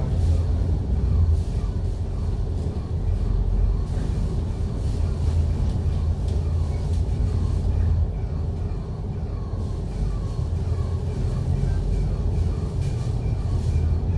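MAN A95 Euro 5 double-decker bus running in service, heard from inside: a steady low engine and road rumble with a faint wavering whine above it.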